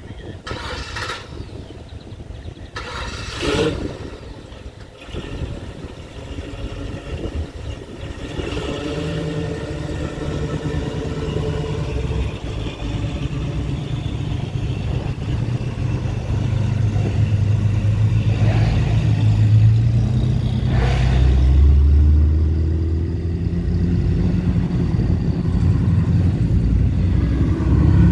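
Classic cars driving past on a road, their engines running and growing louder, with a deep rumble building in the second half as a car comes close.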